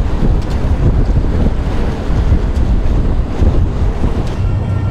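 Heavy wind buffeting the microphone over water washing against a hull. About four seconds in, the sound changes to a steadier low hum.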